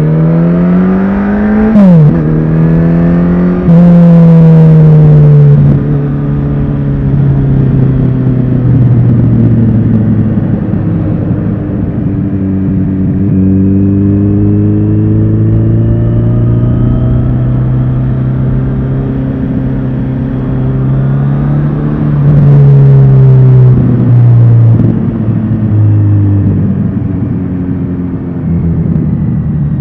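Kawasaki Z900RS inline-four engine under way: it revs up, drops sharply at a gear change about two seconds in, pulls again, then eases off and runs at a steady speed. Near the end the revs dip and climb again.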